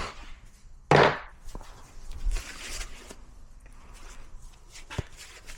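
Handling noises: a loud thump about a second in, then shuffling and scuffs, and a sharp knock near the end.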